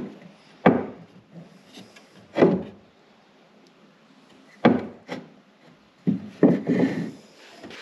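Cedar framing boards handled and shifted against each other: a handful of short wooden knocks and rubs, spaced out, with a quicker cluster near the end.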